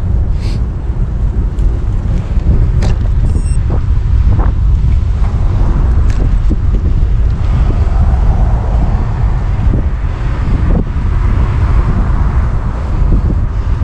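Wind buffeting the microphone of a moving rider, a loud, steady low rumble with a few short clicks.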